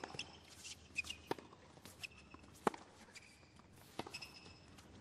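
Tennis rally on a hard court: racket strikes on the ball about every second and a third, with lighter ball bounces between them and short shoe squeaks on the court surface.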